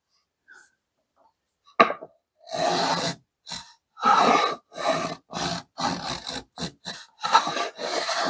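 Small round-over hand plane worked back and forth along the edge of a pine board: about a dozen short scraping strokes, coming quicker toward the end, with the freshly deburred cutter taking a narrow chamfer. A single sharp knock comes just before the strokes start, about two seconds in.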